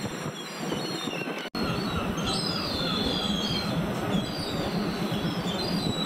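Outdoor street and harbour ambience: a steady low background hum with birds chirping in short, repeated calls, mostly in the second half. The sound cuts out for an instant about a second and a half in.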